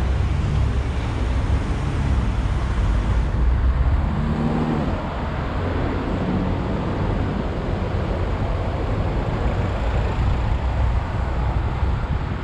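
Car driving through town traffic: steady road noise with a heavy low rumble.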